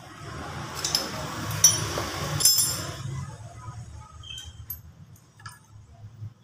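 A hissing spray blasted onto an open motorcycle engine for about three seconds, with a few sharp clinks during it, followed by light metallic clicks and clinks.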